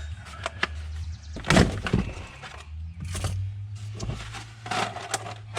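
Irregular knocks, clacks and short rustles of plastic and paper items being handled and set down while unpacking a chainsaw kit, over a low steady hum.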